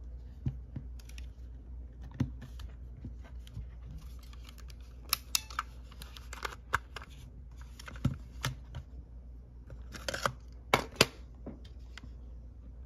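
Sharp plastic and metal clicks and clatter from handling a Sony WM-FX675 Walkman cassette player and a cassette: the battery door being closed and a cassette being put into the cassette compartment. The loudest snaps come about five seconds in and again near eleven seconds.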